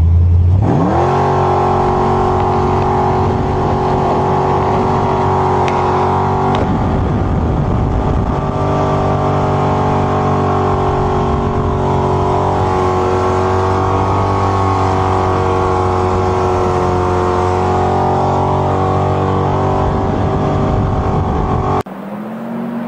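Race boat's engine revving up within the first second, then running flat out at a high, steady pitch with slight wavers. Near the end it cuts off abruptly to a quieter engine sound.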